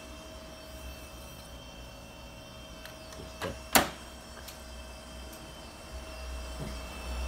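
Canon imagePRESS C1 colour copier-printer running as it prints a test page, a steady mechanical hum with a held whine. A sharp clack a little over halfway through, with a smaller click just before it, and the machine's running sound grows louder near the end as the sheet feeds out.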